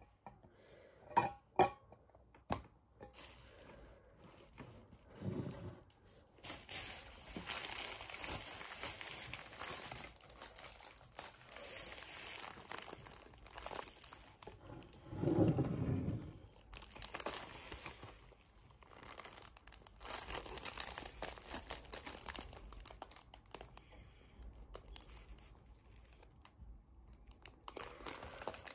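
Packaging crinkling and rustling as it is handled, after a couple of light knocks near the start, with a louder, heavier rustle about halfway through.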